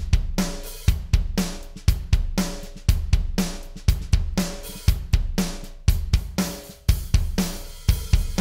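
A drum kit groove playing back on a drum bus: kick, snare, hi-hats and cymbals in a steady beat, with a deep kick about once a second and a hit between each pair.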